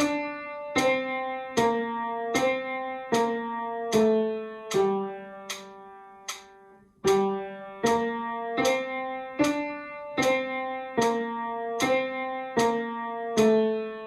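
The bass-part melody of a hymn played one note at a time on a plucked or struck string instrument. Each note starts sharply and rings on, coming about every 0.8 s, with one longer note held about halfway through.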